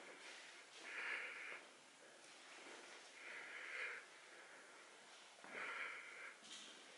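A person's breathing close to the microphone: three faint, even breaths about two and a half seconds apart.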